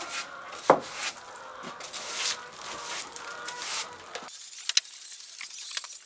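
Stiff push broom sweeping and scraping over wooden planks and dirt ground in repeated strokes, with a sharp knock about a second in.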